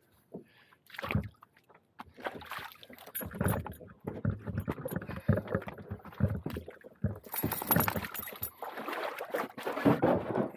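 A canoe being handled at the water's edge: irregular knocks and scraping against its hull, getting busier and louder in the second half.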